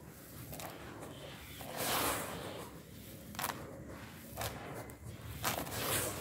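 Dry, grainy red dirt poured from cupped hands onto a bed of the same dirt, a few times over, each pour a short hissing rush of falling grains.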